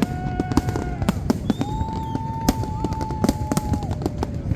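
Fireworks display: a rapid, irregular run of sharp bursts and reports, with a couple of long steady tones held over them in the middle.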